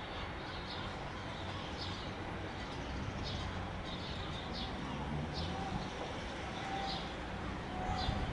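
Small birds giving short, high chirps, one every second or so, over a steady background hiss.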